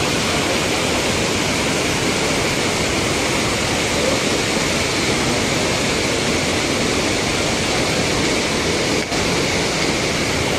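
River water pouring over a low masonry weir, making a loud, steady rush of white water.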